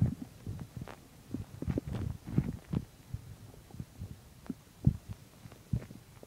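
Human stomach gurgling and rumbling while digesting a meal of chicken and milk: irregular low gurgles and pops, a busy cluster around two seconds in, and a few sharper single pops later on.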